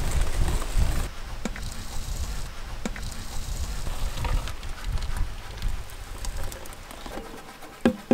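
A wire whisk beating thick cake batter in a large steel bowl. About a second in it gives way to the batter pouring into a metal pot, with scattered light clicks, and there is a sharp knock near the end.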